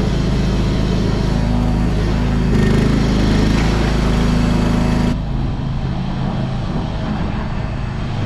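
An engine running steadily, its sound changing abruptly about five seconds in.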